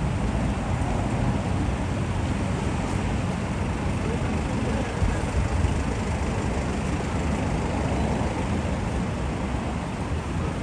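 Steady city street ambience, mostly a low rumble of road traffic, with no single sound standing out.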